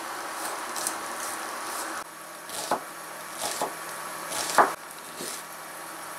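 Chef's knife chopping on a wooden cutting board, mincing garlic and then slicing onion: light taps at first, then a handful of separate sharper knocks, the loudest about four and a half seconds in. A steady hiss underneath cuts off suddenly about two seconds in.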